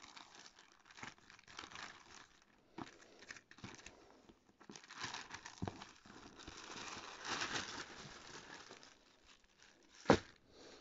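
Clear polyethylene packaging bag crinkling in irregular bursts as it is handled, with one sharp knock near the end, the loudest sound.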